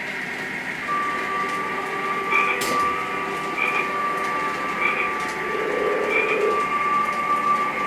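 Lionel model freight train rolling along its track: a steady running rumble with a thin, constant whine that comes in about a second in, and light clicks roughly once a second.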